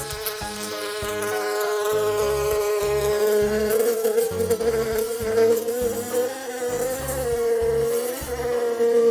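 A flying insect buzzing: a steady, slightly wavering whine, over a low, regular beat.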